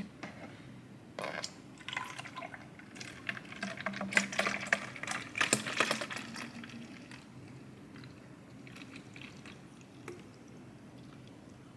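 Liquid pouring and dripping, with irregular small clicks and knocks of containers being handled; the activity dies down after about seven seconds.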